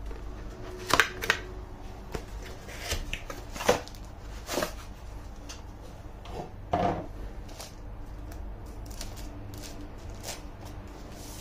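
Packaging and small parts being handled during unboxing: scattered clicks, knocks and rustles, the sharpest about one second in and near four seconds in, with a longer rustle near seven seconds, over a steady low hum.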